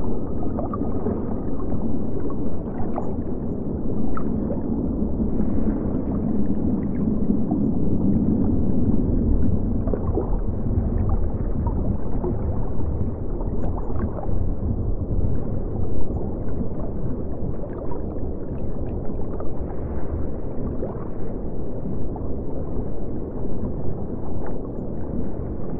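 Underwater bubbling ambience: a steady, muffled low wash of water with scattered small bubble pops and gurgles.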